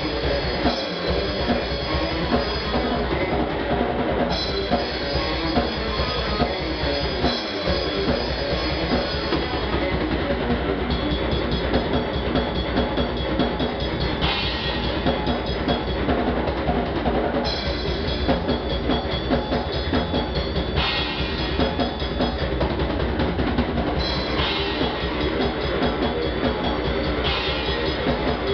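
Death metal played on a drum kit and electric guitar: fast, dense drumming with bass drum and snare under steady cymbals, over a heavy guitar riff. The cymbal pattern changes every few seconds as the riff moves between sections.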